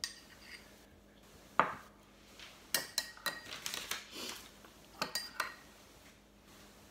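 Kitchen utensils clinking and knocking against a dish as butter is added to bread dough: a sharp knock about a second and a half in, then small clusters of clinks.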